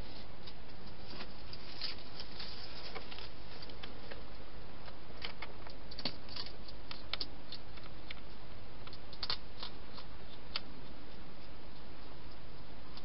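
Wild hedgehog eating inside a plastic feeding box: irregular crunching and clicking of food being chewed, over the steady hiss of the camera's microphone.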